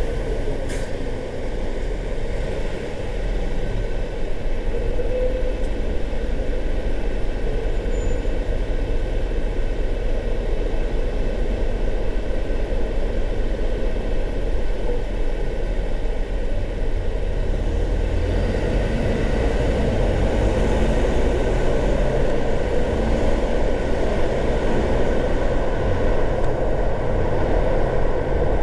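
A car driving: steady tyre and engine noise with a low rumble.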